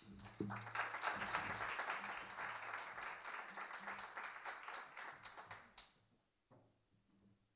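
Audience applauding, a dense patter of many hands clapping that fades away at about six seconds, followed by a few faint taps.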